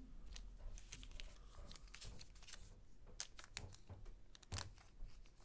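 Faint handling noise from trading cards and their wrappers: light crinkling and scattered soft clicks, with a few sharper clicks between about three and five seconds in.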